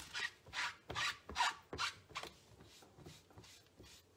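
A cleaning cloth rubbed over a rubber stamp and a silicone stamping mat to wipe off ink. There are about six quick wiping strokes in the first two seconds, then fainter rubbing.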